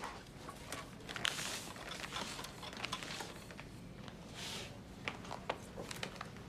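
Quiet room tone with scattered light clicks and soft rustles, two of them a little louder about a second in and again near the five-second mark.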